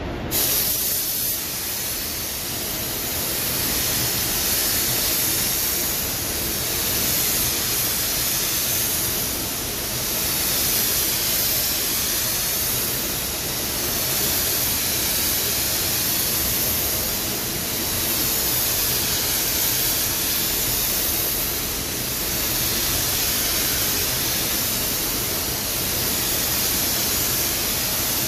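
Hose-fed paint spray gun hissing steadily as it sprays paint onto a car's body panels, the hiss swelling and fading every few seconds.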